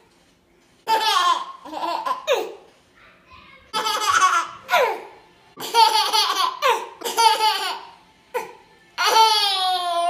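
A toddler laughing in hearty belly laughs, in several bursts of high, falling giggles with short pauses between them.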